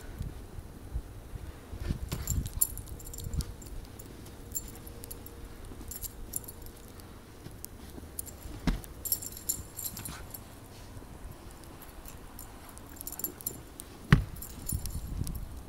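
Footfalls and scuffs in snow and a soccer ball being kicked about, with spells of light metallic jingling from a dog's collar tags as it runs, and one sharp thud about fourteen seconds in.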